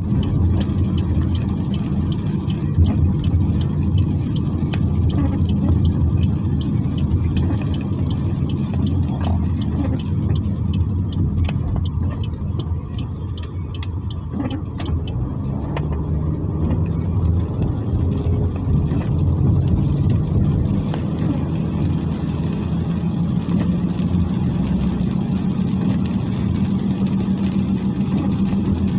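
Car driving on a rain-wet road, heard from inside the cabin: a steady low engine hum under the hiss of tyres on wet pavement, with scattered faint ticks.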